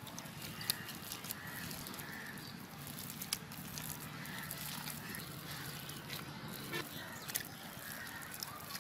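Wet squelching as a hand squeezes and rubs fibrous ripe palm fruit against a stainless steel plate to work the pulp out of the fibres, with many small scattered clicks and taps.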